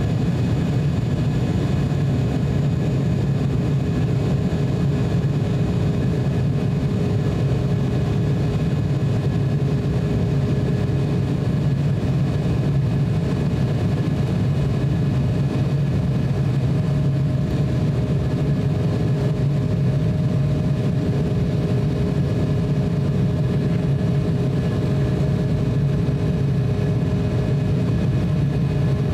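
Cabin noise of an Embraer E170 climbing after takeoff: a steady low drone from its two General Electric CF34-8E turbofans and the airflow, with several faint steady whine tones above it, one of which shifts in pitch about halfway through.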